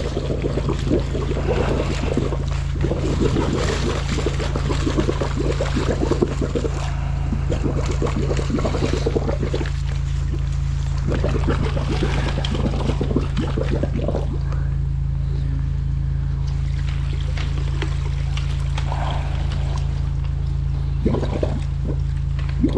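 Storm water churning and gurgling in a flooded drain pit around a high-pressure jetter hose, over the steady low drone of the jetter's engine. The churning eases after about fourteen seconds as the water swirls down the pit and drains.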